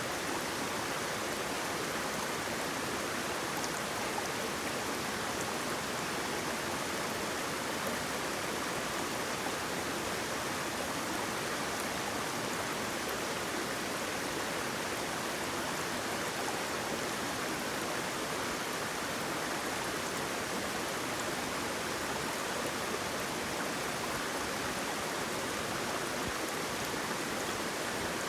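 Waterfall: a steady, even rush of flowing water that does not change.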